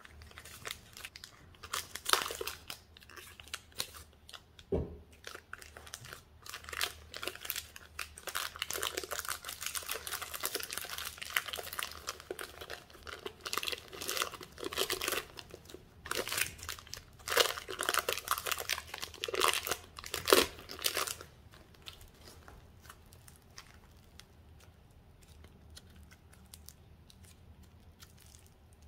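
Thin clear plastic bag crinkling and tearing as it is peeled off a lump of clay, in crackly bursts that stop about two-thirds of the way through. There is a single dull knock about five seconds in.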